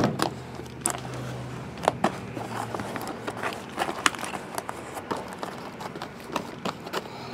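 Sealed cardboard trading-card hobby boxes being handled and set in a stack on a table: a scatter of light knocks and taps, the sharpest right at the start and about two seconds in.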